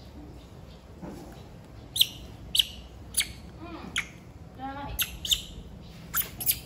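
Short, sharp bird-like chirps, about eight of them, beginning about two seconds in. A lower call falls in pitch in the middle.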